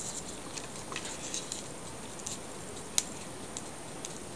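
Hand stripping rosemary leaves and scattering them onto vegetables in an aluminium-foil baking pan: faint small ticks and crackles, with one sharper click about three seconds in.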